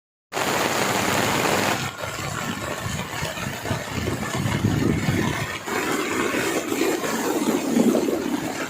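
Highway traffic in heavy rain: vehicle engines with a steady hiss of rain and wet-road spray, loudest during the first second and a half.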